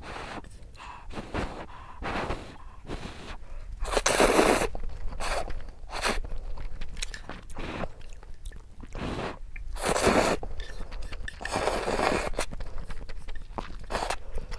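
A person slurping instant ramen noodles and chewing, close to the microphone: several loud slurps of about half a second to a second, the biggest about four seconds and ten seconds in, with quieter chewing between.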